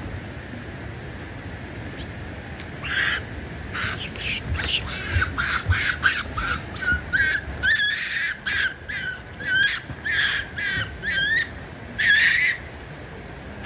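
Japanese macaque (snow monkey) giving a run of short, high-pitched coo calls, about two a second, beginning a few seconds in; some calls bend sharply up or down in pitch.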